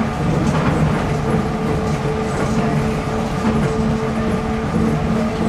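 Nippori-Toneri Liner 300-series rubber-tyred automated guideway train running between stations, heard from inside the car: a steady rumble of tyres on the guideway with a constant hum held on two tones and a few light knocks.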